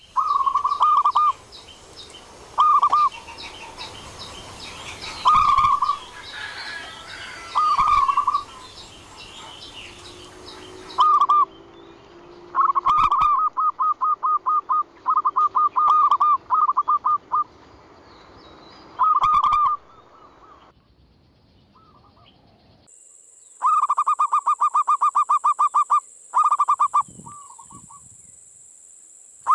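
Zebra doves (local perkutut) cooing: repeated phrases of quick staccato coos, some short and some long rolling runs, with a short lull about two-thirds of the way through.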